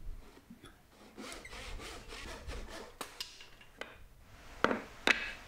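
Light, rhythmic strokes of a tenon saw cutting walnut, followed near the end by two short knocks of wood set down on a wooden workbench.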